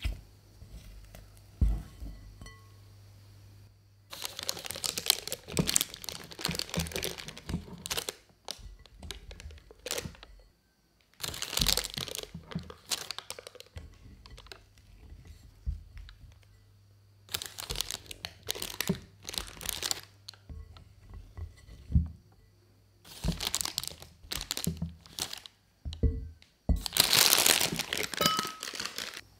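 A silicone spatula working thick churro dough in a glass bowl with soft scrapes and taps, then a thin plastic piping bag crinkling in repeated bursts as the dough is filled into it and the bag is handled.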